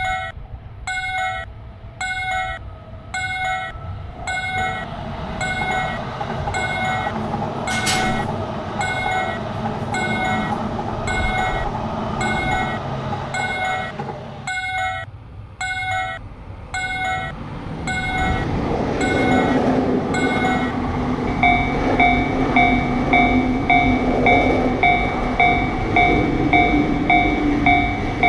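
Japanese level-crossing warning bell ringing in a steady rhythm while electric trains run past, their rail noise and motor hum swelling and fading. About three-quarters of the way in, the bell changes to a brighter tone.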